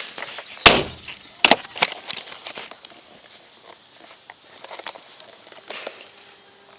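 Footsteps crunching and rustling through dry leaves and brush, with many small crackles. Two sharp loud cracks stand out, about 0.7 and 1.5 seconds in, the first the loudest.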